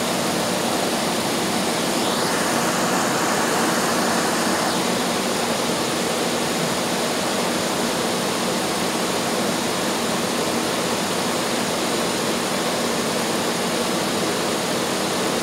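2004 Buick Park Avenue's 3.8-litre V6 running at idle after a new set of intake manifold gaskets, heard as a steady rushing noise from the engine bay. It is being run to warm up so the thermostat opens and the cooling system can be bled.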